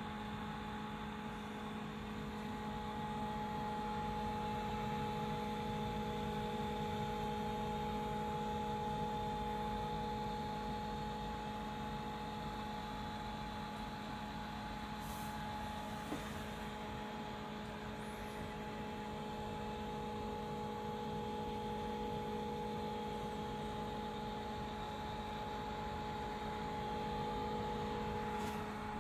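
Steady electrical hum made of several unchanging tones over a low background hiss.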